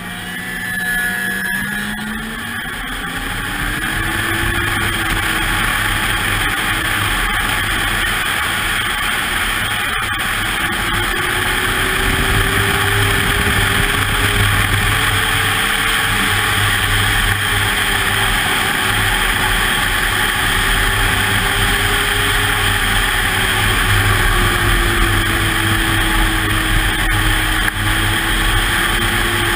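Ski-Doo snowmobile engine running at speed, its pitch climbing over the first few seconds as it accelerates, then holding with slight rises and falls, over a steady rushing noise.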